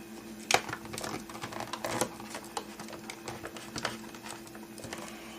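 Small plastic clicks and taps at an irregular pace as the retaining tabs of a car's overhead-console map-light housing are pried and worked loose, over a faint steady hum.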